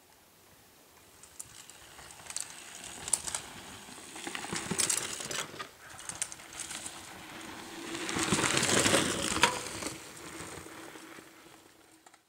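Mountain bike passing on a forest dirt and gravel trail: tyres crunching over the ground, swelling to a peak about eight to nine seconds in and then fading, with scattered sharp clicks.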